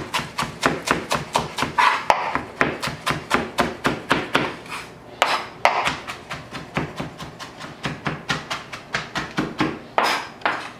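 Chef's knife chopping parsley on a plastic cutting board: a fast, even run of knocks, about five a second, broken a few times by brief scrapes.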